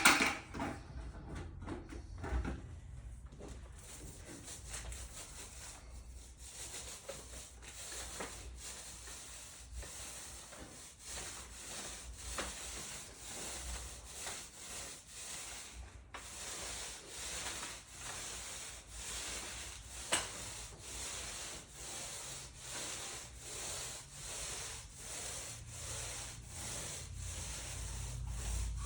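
A sharp knock at the start, then rhythmic back-and-forth rubbing strokes of a hand tool working the concrete slab surface, a little faster than one stroke a second in the second half.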